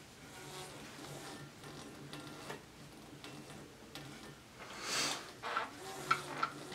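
Faint rubbing and scraping of a wooden paddle against a leather-hard clay vase as it is pressed to square the sides, with a louder brushing scrape about five seconds in, over a faint low steady hum.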